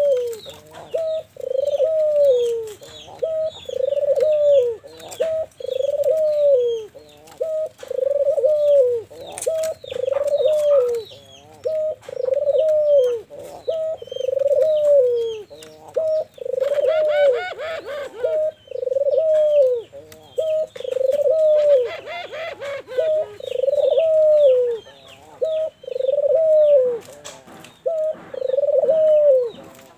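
Ringneck dove (puter) cooing over and over, about one rising-and-falling coo a second. Small birds chirp faintly in the background.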